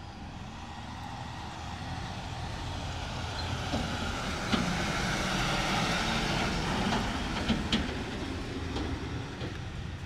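A vehicle passing by, its rumbling noise building over a few seconds and then fading, with a few sharp rattling clicks near the middle.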